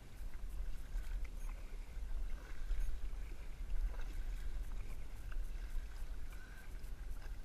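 Water lapping and swishing against a plastic kayak's hull as it moves along, over a low steady rumble, with a few faint splashes.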